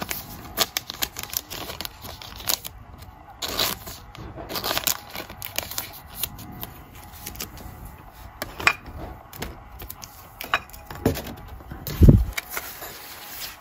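Foil wrapper of a Panini Mosaic card pack being torn open and handled, crackling and crinkling irregularly, with one dull thump near the end.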